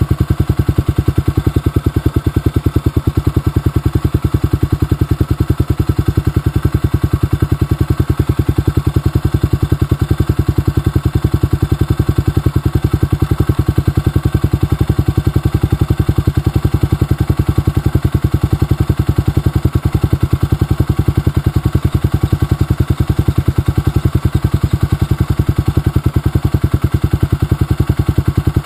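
Motorcycle engine running steadily at low revs, a fast even beat that does not change.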